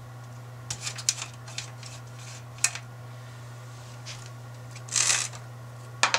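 Screws being undone by hand at the back of a CaseLabs computer case's motherboard tray: scattered small metal clicks, with a longer scraping rustle about five seconds in, over a steady low hum.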